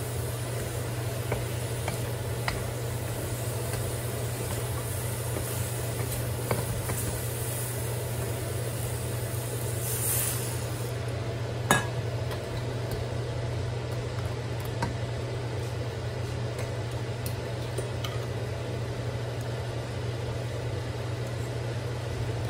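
Beef and green beans sizzling in a wok while a wooden spatula stirs and scrapes through them, giving scattered light clicks over a steady low hum. There is one sharper knock about halfway through, and the high hiss of the sizzle fades around then.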